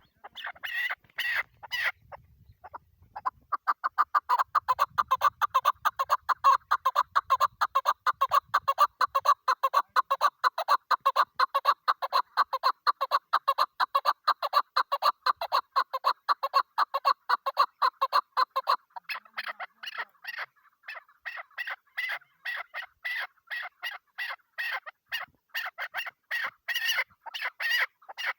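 Female chukar partridge calling: after a few opening notes, a long, fast run of repeated chuk notes. About two-thirds of the way through it changes to higher, more widely spaced notes.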